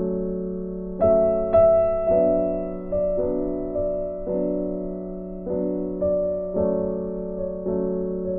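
Background music: gentle piano chords struck about once a second, each left to fade before the next.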